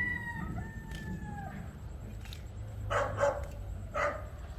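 A dog giving one long, drawn-out whine that falls slightly in pitch, then barking three times in quick short barks about three seconds in.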